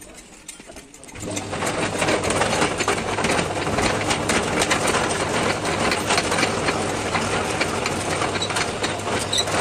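Metal lathe starting up about a second in, then running steadily with a low hum and a rough, scraping cutting noise as it machines a truck leaf-spring part.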